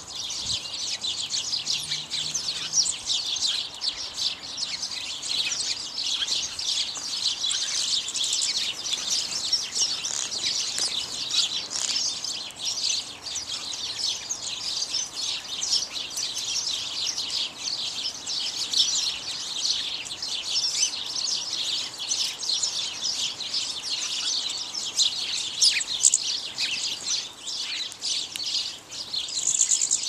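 A flock of house sparrows chirping: many short, high chirps overlapping in a continuous chatter.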